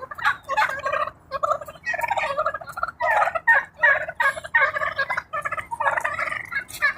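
A flock of wild turkey toms gobbling, many birds calling over one another in a near-continuous chorus of rapid rattling gobbles.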